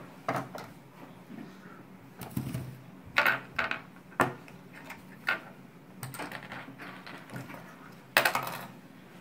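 Small plastic toy pieces clicking and knocking against a wooden tabletop as they are handled, picked up and set down, in irregular taps with a few sharper knocks, one of the loudest near the end.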